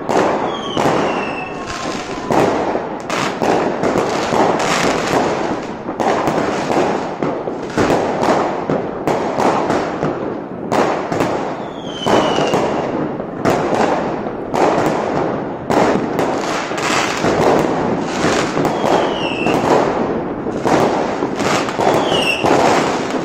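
Many aerial fireworks going off overhead: a near-continuous run of bangs and crackling, with a few short whistles falling in pitch.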